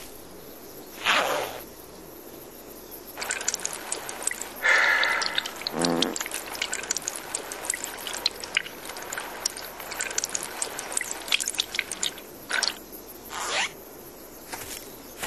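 Liquid trickling and splashing onto the forest floor, with small crackly rustles in the leaf litter.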